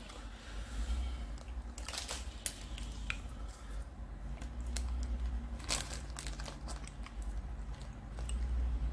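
A plastic instant-noodle packet crinkling as it is handled, with a few sharp crackles.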